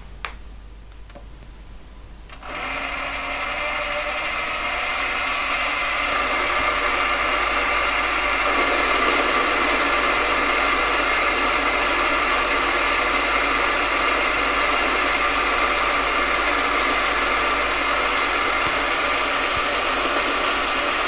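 Mini lathe with a 500-watt motor starting up about two and a half seconds in and running with a steady whine. About eight seconds in, the tool starts cutting a mild steel bar, adding a steady, louder cutting noise that carries on over the motor.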